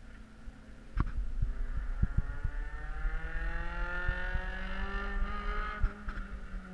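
Race car engine out of sight on the oval, its note climbing slowly as it accelerates for a few seconds, then fading about six seconds in. Wind rumbles and thumps on the microphone.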